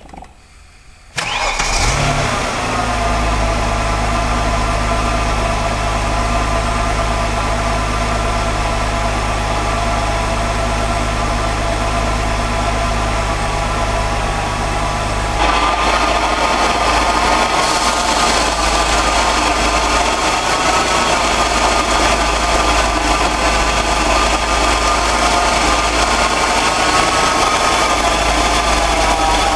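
The 1997 Cadillac Catera's 3.0-litre V6 is cranked and catches about a second in, then idles steadily. About halfway through, the note of the running engine changes: the low steady hum drops out and a higher whir gets stronger.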